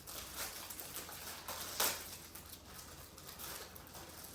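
Rustling and handling of clothes and plastic packaging during unboxing, with one sharper crackle about two seconds in.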